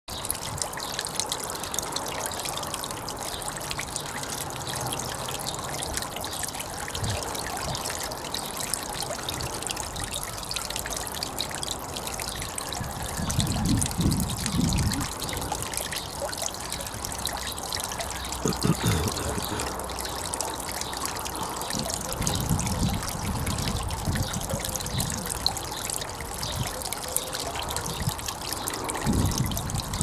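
Garden pond waterfall: water splashing and dribbling steadily in several thin streams off a stone ledge into the pond. A few short low rumbles of wind on the microphone come and go.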